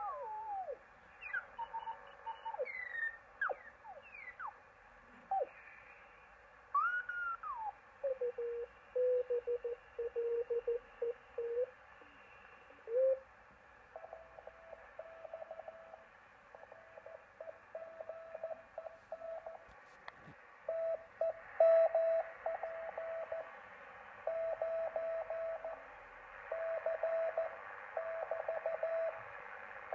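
A homebuilt shortwave superheterodyne receiver's speaker output over band hiss. In the first seconds it gives whistles that slide in pitch as it is tuned across signals on the 80 m amateur band. From about halfway it settles on a Morse code (CW) station: one steady tone keyed on and off in dots and dashes.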